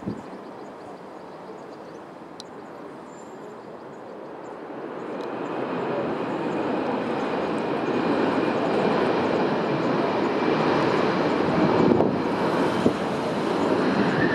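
Airbus A321 jet engines on the landing roll-out, the engine noise growing louder from about four seconds in as the airliner rolls closer, with a steady high whine over it.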